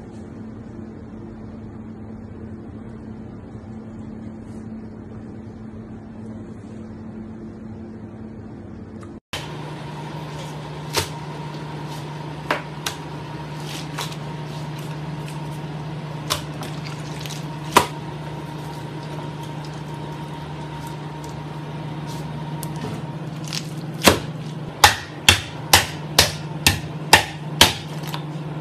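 Steady kitchen hum, with a few scattered knocks on a cutting board after the cut, then near the end a metal pot pounding a raw octopus on the board in quick sharp strikes, about two a second, to tenderise it.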